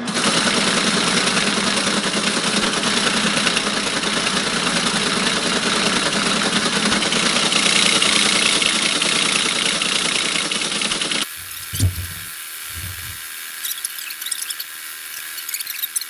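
Teletype ASR33 printing continuously at full speed, a steady dense mechanical clatter of the typing unit. About eleven seconds in it gives way suddenly to a quieter passage with scattered clicks and two short low thumps.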